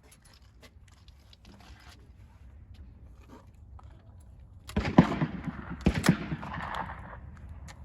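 Two shotgun shots about a second apart, the first the louder, each trailing off in a short echo.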